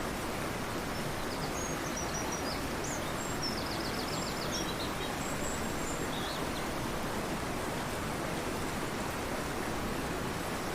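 Fast-flowing river rushing steadily, with a bird's faint high chirps and a short rapid trill in the first half.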